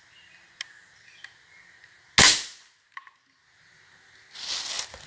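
Crosman 760 Pumpmaster pneumatic air rifle firing one BB: a single sharp crack about two seconds in, after two small clicks. A faint click follows, and rustling starts near the end.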